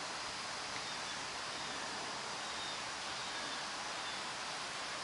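Steady, even background hiss with no distinct knocks or rhythm.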